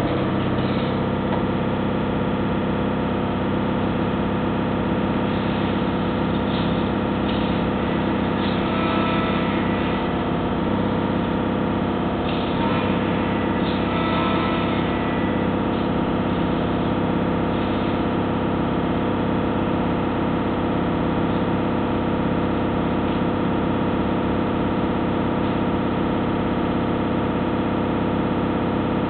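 Hess Swisstrolley 4 trolleybus's auxiliary diesel engine running at a steady speed, heard inside the passenger cabin, with a few faint light knocks and rattles in the middle.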